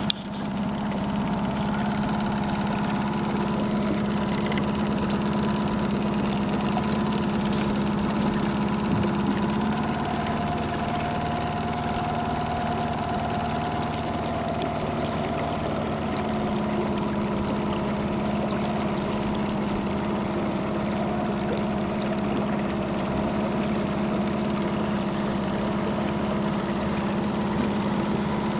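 Honda four-stroke outboard motor running steadily at low revs while trolling, its note shifting slightly for a few seconds midway.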